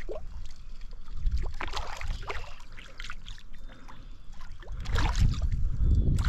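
Gusty wind buffeting the microphone as an uneven low rumble, surging about a second in and again from about five seconds, with scattered short clicks and ticks over it.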